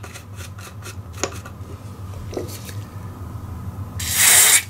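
Small clicks and scrapes of a screwdriver working a potentiometer, then, about four seconds in, a short hiss of DeoxIT Fader F5 contact cleaner sprayed from an aerosol can through its straw into the bias pots.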